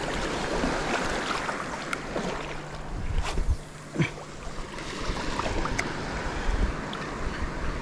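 Shallow seawater sloshing and splashing around wading feet, with wind buffeting the microphone. A few sharp clicks come about three and four seconds in.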